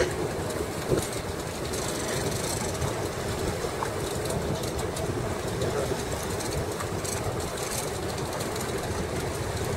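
A fishing boat's engine running steadily: a continuous low rumble with a wash of noise over it.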